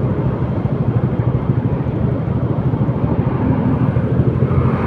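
Steady low rumble of wind and road noise from riding a moving motor scooter.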